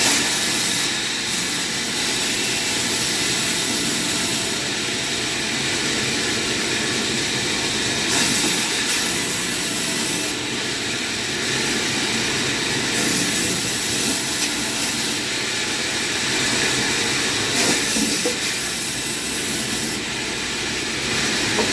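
A woodworking power saw running steadily, a loud continuous noise whose upper range shifts every few seconds.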